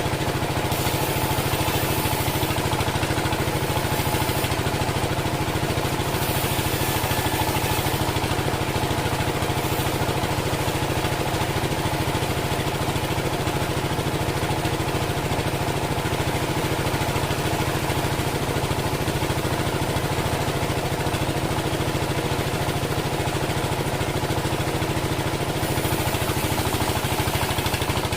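Engine of a homemade band sawmill running steadily at an even speed, with a fast, even pulsing.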